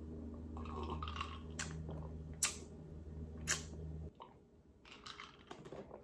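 A person sipping and swallowing iced coffee from a glass, quiet mouth and drinking sounds with a few short sharp clicks. A low steady hum runs underneath and stops abruptly about four seconds in.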